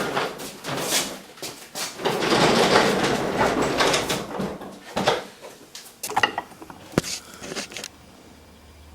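Workshop machine being pushed across the floor, with a long scraping, rolling noise, then a few knocks as it is set in place, the sharpest about seven seconds in.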